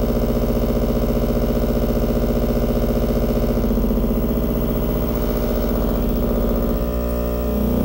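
Experimental electronic noise drone: a loud, dense buzzing hum with a rapid fine pulse, holding steady and then shifting in tone near the end.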